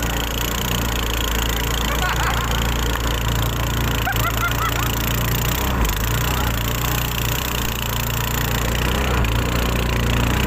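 Wooden river boat's engine running steadily while under way, with a constant rush of wind and water over it.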